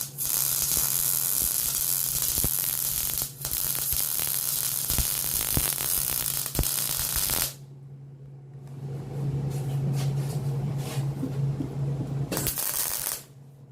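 Arc welding a joint on steel angle iron: a steady crackling hiss of the arc, broken for a moment a few seconds in. It stops about halfway through and starts again, with a short brighter burst near the end. A steady low hum from the welding machine runs underneath.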